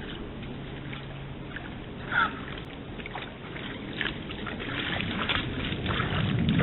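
Water splashing and sloshing as a red deer wades through a swollen stream, with a string of short splashes that grow louder towards the end. A single sharp, louder sound comes about two seconds in.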